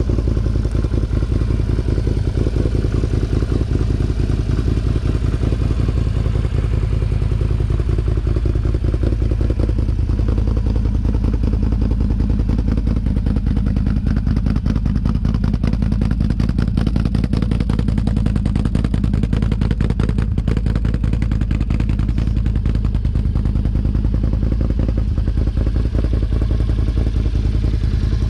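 Can-Am Outlander XMR 1000 ATV's V-twin engine running through a Yoshimura aftermarket exhaust, a steady, rapidly pulsing exhaust note.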